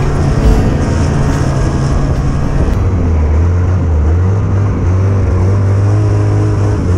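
Snowmobile engine running, then dropping to a lower, steady idle about three seconds in as the sled slows and stops.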